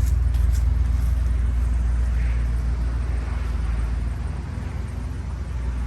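An engine idling with a steady low hum, easing slightly about four seconds in.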